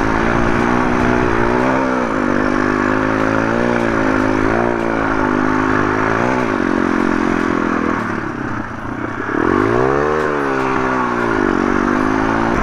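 MRF 140 RC pit bike's single-cylinder four-stroke engine pulling up a trail climb, its pitch wavering up and down with the throttle. About eight seconds in it drops back, then revs up and falls away again around ten seconds in.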